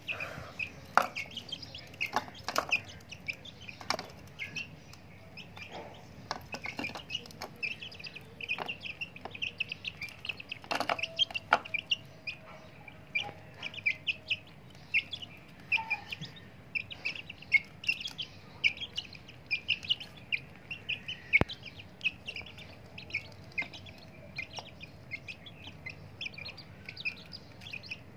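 Young chickens peeping in quick, repeated short calls while they feed, with scattered sharp taps as beaks peck at the food and plate.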